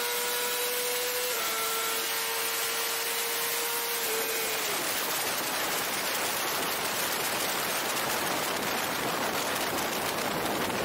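Motorcycle engine running at high revs under heavy wind rush on the bike-mounted action camera's microphone. The engine note dips slightly about a second in and fades out around four to five seconds in, leaving a steady rush of wind.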